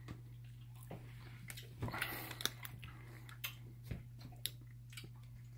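A person chewing a soft, chewy sour gummy candy, with faint scattered wet mouth clicks over a steady low hum.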